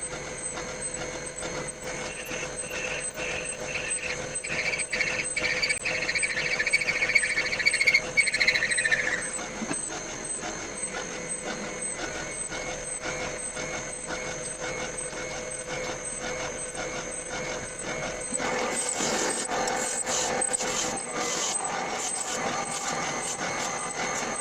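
Milling machine drilling a deep hole in duralumin: a steady machine whine, with a high squealing tone from the drill cutting about two seconds in that stops near nine seconds. From about eighteen seconds the sound turns rougher, with crackling and rattling.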